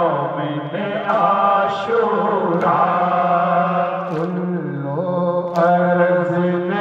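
Group of men chanting a Muharram noha through microphones: a lead voice with others holding long, wavering notes over a steady low tone, with a soft sharp beat about every second and a half.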